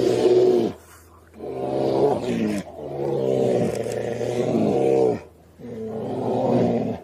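Brown bears roaring as they fight, a run of long, drawn-out roars with short breaks between them.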